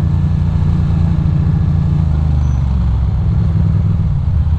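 2006 Ducati Monster 620's air-cooled L-twin engine running at low revs while the bike crawls in slow traffic, its pitch dipping briefly around the middle.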